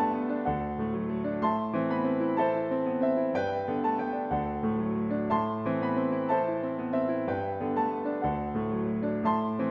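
Instrumental background music on piano: a flowing run of struck notes over bass notes that change every second or two.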